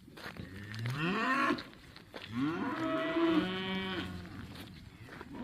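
Cattle mooing at feeding time: one rising moo about a second long, then a longer moo of about two seconds.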